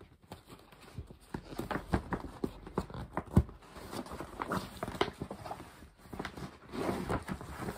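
Paper gift packaging being opened by hand: rustling and crinkling with irregular taps and knocks.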